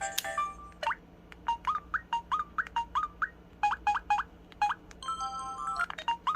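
Built-in electronic sound effects of a Samsung SPH-W8350 mobile phone: after a click, a quick run of short chirping tones that swoop up and down, about two to three a second, then near the end a brief jingle of held electronic tones.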